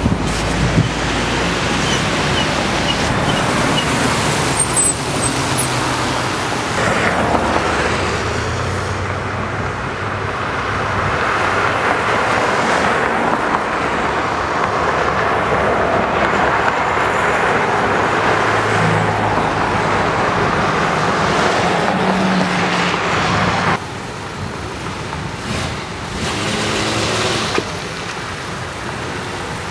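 Traffic on a snow-covered road: car engines running and tyres hissing through slush, a steady rushing noise with low engine hum.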